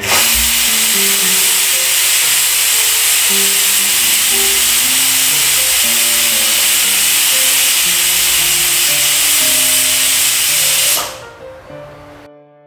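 Pressure cooker whistle: a loud, steady hiss of steam venting through the whistle valve for about eleven seconds, dying away near the end. It is the sign that the cooker has come up to pressure while the chickpeas cook.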